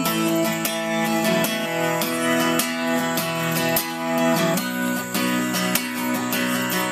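Capoed Yamaha steel-string acoustic guitar strummed steadily with no voice, an instrumental break in a country song.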